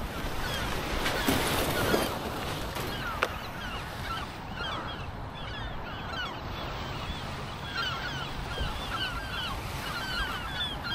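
A flock of birds calling in many quick, repeated chirps over a steady wash of waves on the shore, with a few sharp knocks in the first seconds.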